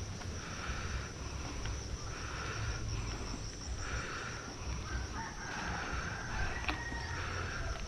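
Heavy, rapid breathing of a mountain biker straining up a steep climb: hard breaths about every second and a half, with a longer drawn-out one about five seconds in, over a low rumble of wind and riding noise.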